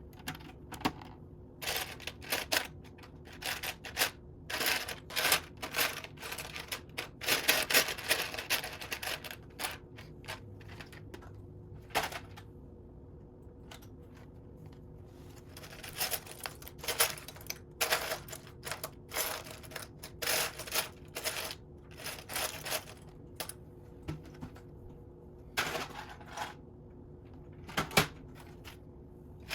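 Loose plastic Lego pieces clicking and clattering as they are picked through and handled, in irregular clusters of sharp clicks with a quiet pause around the middle.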